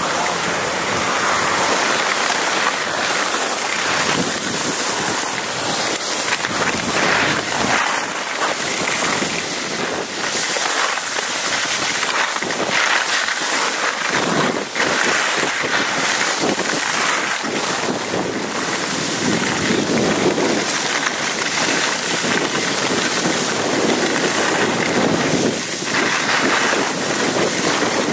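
Wind rushing over the microphone of a camera carried by a skier going downhill, with the hiss and scrape of skis carving on packed snow, swelling and easing with each turn.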